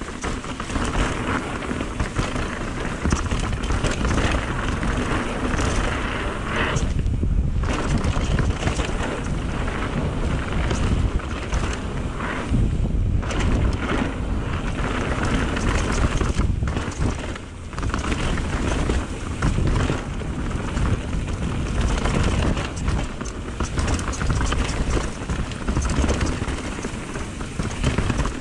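Mountain bike ridden fast down a dirt trail: tyres rumbling over the ground and wind buffeting the microphone, a steady noisy rush that drops briefly a few times.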